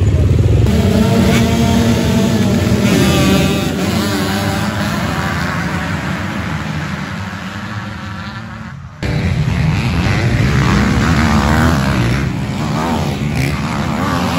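A pack of motocross bikes accelerating hard off the start, many engines revving and climbing through the gears at once, then fading as they pull away. After a sudden cut, dirt bikes race past close by, their engines revving up and down.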